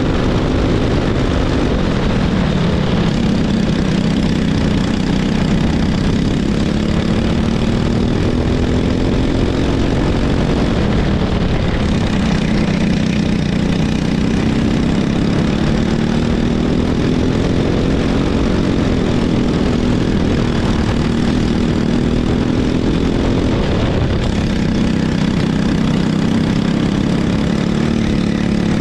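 Racing kart engine running hard, its pitch climbing along the straights and dropping sharply several times as it slows for corners, over a steady rush of noise.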